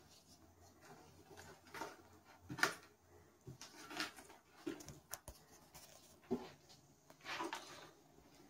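Wooden spoon stirring and scraping thick bun dough in a plastic mixing bowl, in irregular strokes, the loudest about two and a half seconds in.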